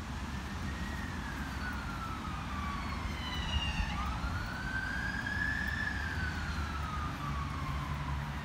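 Emergency vehicle siren wailing, slowly rising and falling in pitch, over a low rumble.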